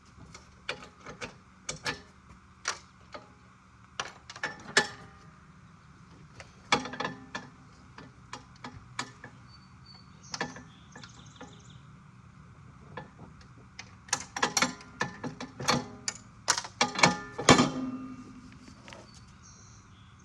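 Irregular metal clanks, clicks and rattles of hands and tools working on a riding mower's cutting deck. A louder cluster of knocks comes near the end, one of them a clank that rings briefly.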